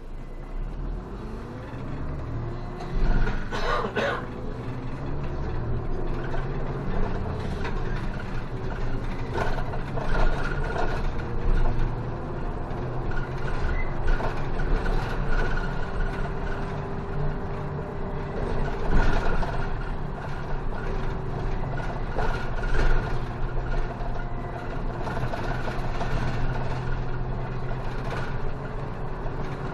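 City bus pulling away and driving along a street, heard from inside the cabin at the front: the engine note rises over the first few seconds, then runs steadily over tyre and road noise. A few knocks and rattles from the bus body come through, the loudest about three seconds in and again about two-thirds of the way through.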